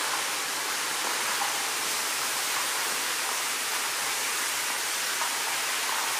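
Water pouring down in thin streams from an opening in the tunnel roof and splashing onto the floor, a steady, even splashing hiss.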